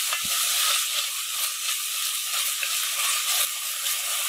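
Diced onion, garlic and curry leaves sizzling steadily in hot coconut oil in an enamelled cast-iron pot, with a wooden spoon stirring through them.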